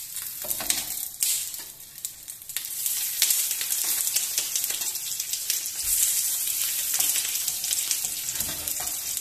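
Hot oil sizzling on a flat tawa as banana-leaf parcels of chicken are laid in to shallow-fry, with a few light taps as parcels are set down in the first two seconds. The sizzle grows stronger about three seconds in and then holds steady.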